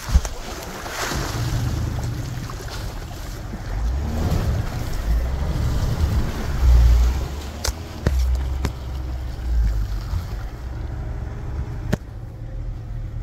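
Pickup truck engine pulling under load as the truck crawls over rutted snow, the rumble swelling and easing, under a rushing noise of tyres in the snow. A few sharp knocks come in the second half.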